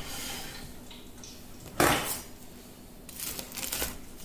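A single sharp clatter of kitchenware on a wooden cutting board about two seconds in, then a chef's knife crunching through a crisp, double-fried crab rangoon wonton near the end.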